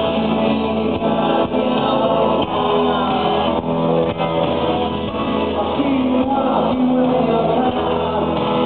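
Live rock band playing with electric guitars, drums and male vocals, heard from within the crowd; the sound is dull, lacking its highs.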